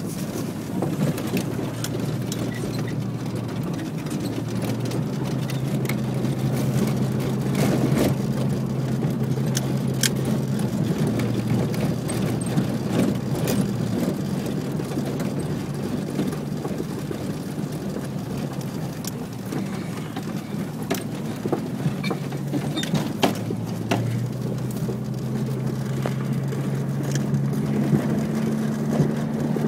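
Car engine running while driving, a low hum whose pitch steps up and down several times, under a constant rush of strong wind carrying sand, with scattered sharp ticks.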